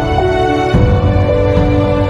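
Background music: sustained synth notes that change pitch every half second or so over a steady low beat.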